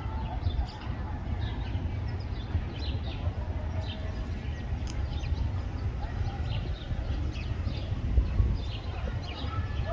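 Sparrows chirping, many short high notes overlapping, over a steady low rumble.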